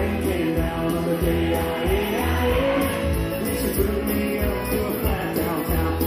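Upbeat rock-and-roll dance music with a singing voice and a steady bass beat, played loud over a DJ's sound system.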